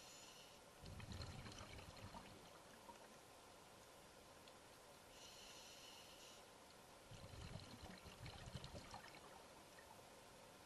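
Faint underwater breathing of a diver: a short hiss of inhaling, then a couple of seconds of low, crackling exhaled bubbles, heard twice about six seconds apart.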